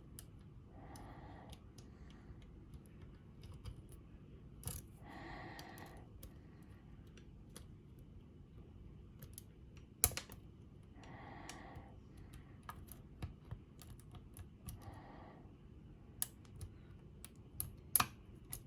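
A lock pick working the pins of an Illinois Duo cam lock: scattered light clicks and ticks at an uneven pace, with one sharper click about ten seconds in and a cluster of clicks near the end.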